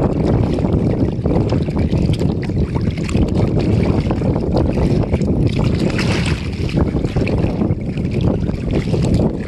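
Strong wind blowing across the microphone, a loud steady rumble.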